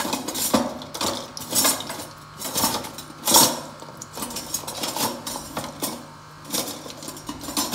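Irregular clinks and knocks of metal kitchen utensils and pots, about a dozen strikes, the loudest near the middle.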